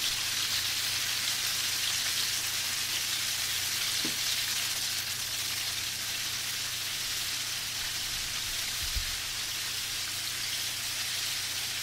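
Battered chicken pakoda pieces deep-frying in oil over a medium flame, with a steady sizzle as they brown.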